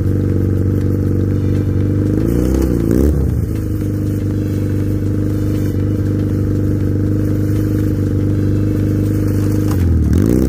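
Chinese 250cc ATV engine idling steadily, with two short throttle blips: the pitch rises and falls about two and a half seconds in and again near the end.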